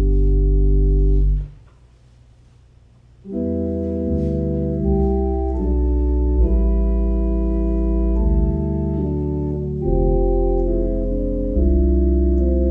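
Church organ playing slow, sustained chords over a deep pedal bass. A held chord ends about a second and a half in, and after a short pause the organ comes back in with a new phrase of changing chords.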